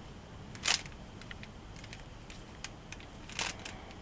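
Plastic Rubik's cube layers being turned by hand, giving short plastic clicks and snaps, with two louder snaps about a second in and near the end.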